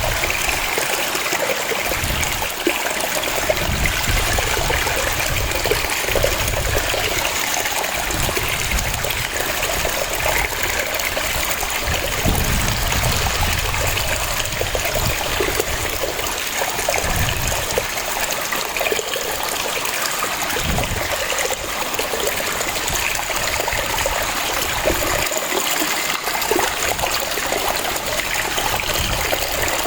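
Waterfall: water cascading and splashing steadily, with a constant rushing hiss and an uneven low rumble.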